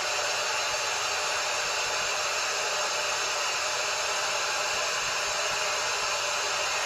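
Steady white-noise hiss from a littleBits Synth Kit random (noise) module played through the small speaker module, the sleep-masking noise of the alarm circuit. It is a thin, even hiss with little bass.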